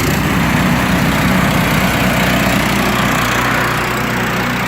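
Small gasoline engine on a snowblower attachment running steadily with its centrifugal clutch engaged, driving the snowblower. The engine note changes right at the start as the blower takes up the drive, and a steady whir rides over the engine hum.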